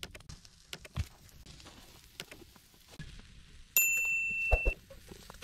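Light clicks and knocks of handling, then, a little past halfway, a piece of metal is struck and rings with a clear high tone for about a second before it is cut short.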